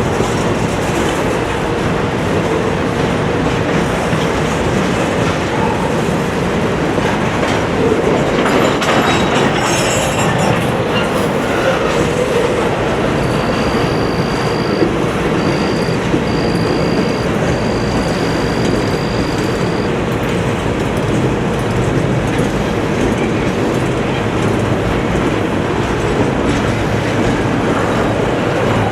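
Norfolk Southern intermodal freight train passing close by: a loud, steady rumble and clatter of wheels on rail. For several seconds in the middle a thin high tone comes and goes in short pieces.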